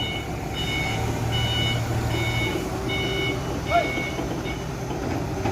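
Forklift reversing alarm beeping about once every 0.8 s and stopping a little after four seconds in, over the steady low running of the forklift's engine.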